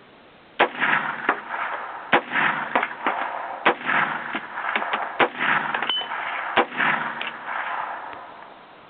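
Five shots of .500 S&W Magnum fired semi-automatically from an AR-15 rifle, spaced about a second and a half apart, each followed by a rolling echo that dies away after the last shot.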